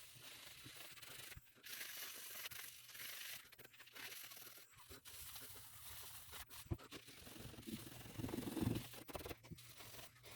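Scotch-Brite pad scrubbing a garden pruner's blades wet with a soap-and-alcohol cleaning solution: faint repeated rubbing strokes with short pauses, a little louder around two-thirds of the way through.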